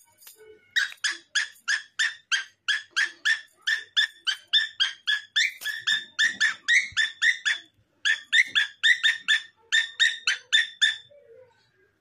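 Pet parrot calling in a long run of short, identical high calls, about three a second, with one brief break a little past the middle.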